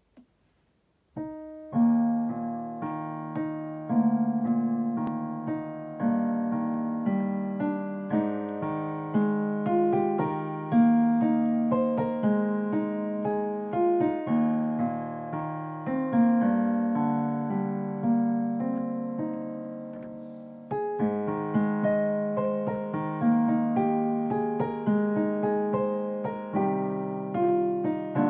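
Digital piano played solo: a flowing piece of struck chords and melody notes, each note decaying after the strike. The playing begins about a second in.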